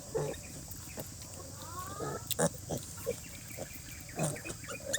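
Pigs grunting in a few short, low grunts, with a brief rising squeal about two seconds in.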